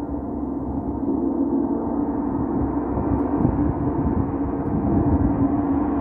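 Large hanging gong played continuously with a ball-headed mallet, giving one unbroken, shimmering wash of tones with a strong low hum, slowly growing brighter as it builds.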